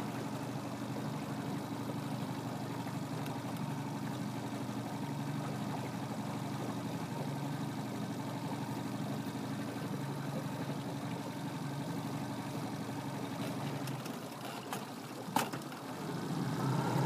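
A boat motor running steadily at low speed, stopping about fourteen seconds in; a single sharp click follows a second or so later.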